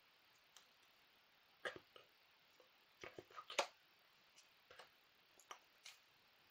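Near silence broken by scattered soft clicks and taps from a person signing: small hand and mouth noises, loudest in a cluster a little past halfway.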